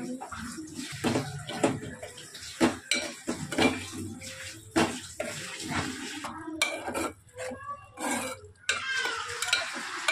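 Metal spoon stirring thick liver curry in a metal pot, knocking and scraping against the pot in irregular clinks.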